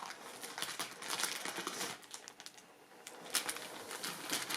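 Small plastic bags of diamond-painting drills being handled, crinkling with scattered light clicks, with a quieter spell about halfway through.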